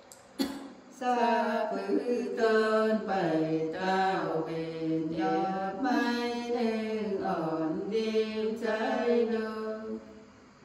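Unaccompanied women's voices singing a Nùng folk song in long, held notes that glide up and down in pitch, starting about a second in and stopping near the end. A short knock comes just before the singing starts.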